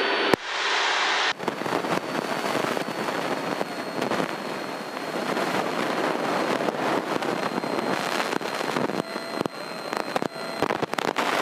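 Crackling hiss of radio static on the headset intercom audio, a steady hiss broken by many sharp clicks and pops, with a faint high whine underneath.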